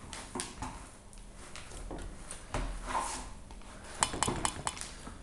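Dough being kneaded by hand in a plastic mixing bowl: soft squashing and rubbing, with the bowl knocking and clattering as it is worked. A quick run of sharp clicks comes about four seconds in.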